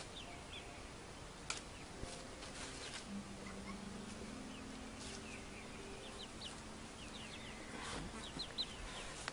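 Faint short, high chirps from birds in quick little clusters, several times. Under them a low steady hum runs through the middle, with one sharp click about a second and a half in.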